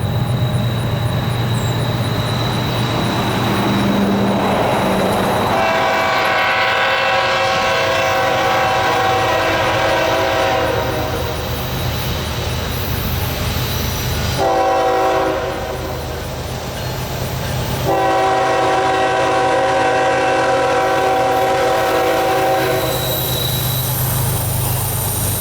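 Lead diesel locomotive, a GE ES44AC, blowing its multi-chime horn as the train approaches: a long blast, a short one, then another long one, the close of a grade-crossing signal. The locomotives' diesel engines rumble steadily beneath the horn.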